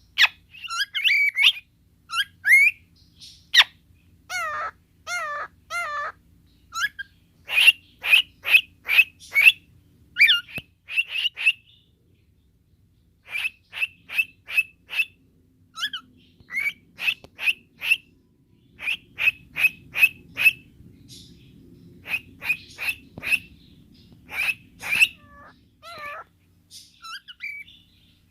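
Pet cockatiel calling: runs of short, sharp chirps at about two to three a second, mixed with warbling, gliding whistles, and a brief pause about halfway through.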